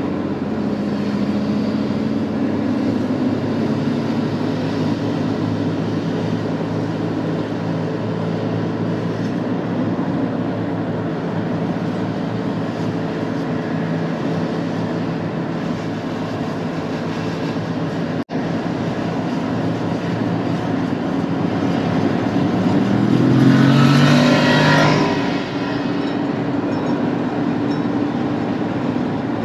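Mercedes-Benz W124-series car driving, heard from inside: a steady engine hum over road and tyre noise. The sound drops out for an instant about 18 seconds in. About 23 seconds in, a louder swell with a rising engine note lasts around two seconds.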